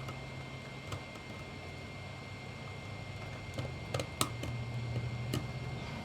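Razor blade prying and scraping along the glued seam of a plastic camera battery case, giving a few sharp clicks and scratches, most of them in the second half, over a low steady hum.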